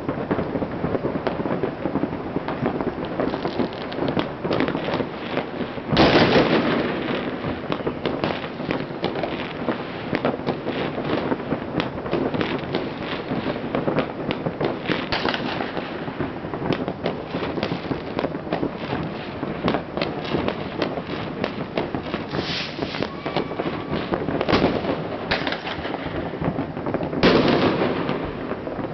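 Fireworks and firecrackers going off all over the city at once: a continuous rattle of many pops and crackles. Louder bangs stand out about six seconds in and several more times in the second half.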